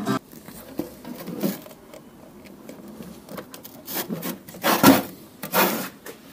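Handling noise as speaker wires are pushed into a small amplifier's spring-clip speaker terminals: light rubbing and scraping with small clicks, and two louder scuffs about five seconds in.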